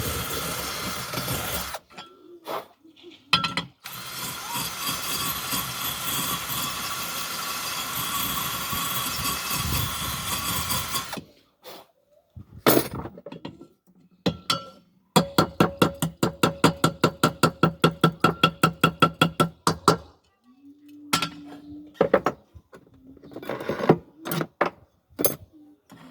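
Pan repair work: a power tool runs steadily for several seconds, with a short break near the start. Later comes a fast, even run of sharp metal strokes, about eight a second, for about five seconds.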